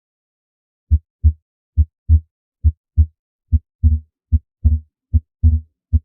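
Recorded human heartbeat of the kind used for auscultation teaching: paired lub-dub beats (first and second heart sounds), starting about a second in and repeating at about 70 beats a minute.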